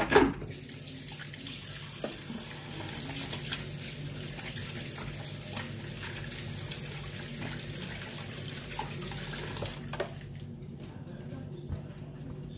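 Kitchen tap running steadily into a sink, shut off about ten seconds in, after a sharp clunk right at the start. A steady low hum runs underneath.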